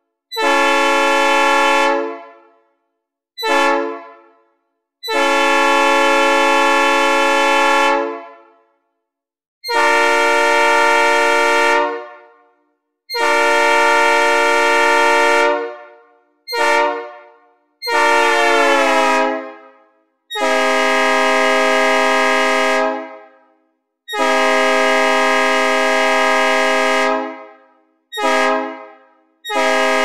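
Synthesized recreation of a Nathan P3 three-chime train horn sounding about ten blasts, long ones mixed with short toots. Each chord starts abruptly and fades out with a reverb tail, and one blast about two-thirds through sags downward in pitch as it dies away.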